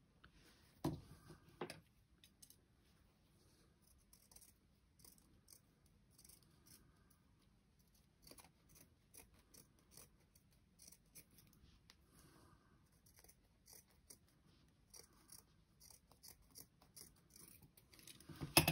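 Scissors snipping through fabric in a run of small, quick cuts, faint, with a couple of louder snips about a second in.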